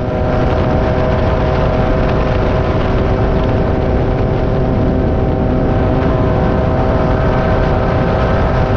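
Class 9 buggy's air-cooled VW engine running at a steady, high speed under way, heard from the cockpit over a loud, constant rush of noise.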